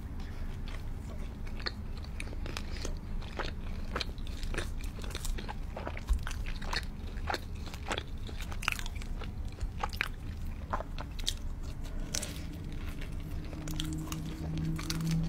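Close-miked eating of pizza crust: crisp crunching bites and chewing, with sharp irregular crunches. A low steady hum comes in near the end.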